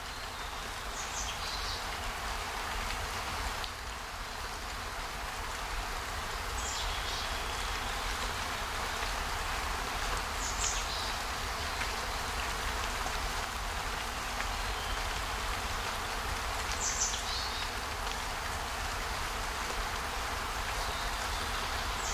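Outdoor nature ambience: a steady hiss of outdoor background noise with a low rumble beneath, and a brief high chirp about every four to six seconds, five in all.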